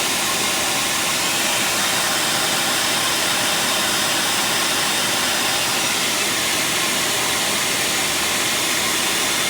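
Engine running steadily with an even, unbroken hiss from an exhaust leak.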